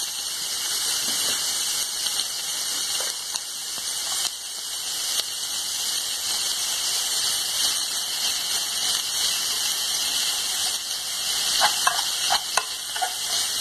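Onion, cabbage and chicken sizzling as they sauté in an aluminium pan, a steady frying hiss, with a steel spoon stirring and scraping the pan a few times near the end.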